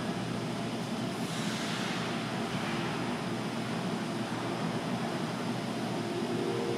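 Steady ice-rink background noise, a constant hum and hiss, with a skate blade scraping across the ice about a second in and fading out a second or two later.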